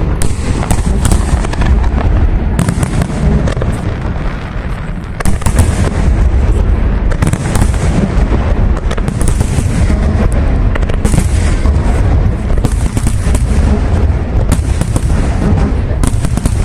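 Fireworks display: a rapid, unbroken barrage of bangs and booms with a heavy low rumble.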